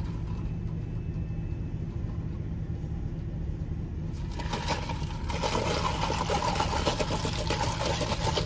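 Car engine idling with a steady low hum, heard from inside the cabin. About four seconds in, a louder rustling and rattling noise joins it.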